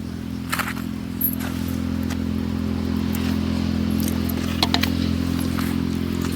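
A steady low mechanical hum, like a running engine or motor, with a few light clicks and clatters over it.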